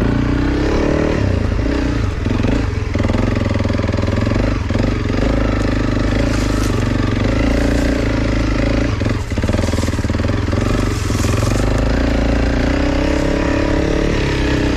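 Honda CRF300 Rally's single-cylinder four-stroke engine running as the bike is ridden slowly off-road, its pitch rising and falling with the throttle. A few brief knocks come through as it goes over rough ground.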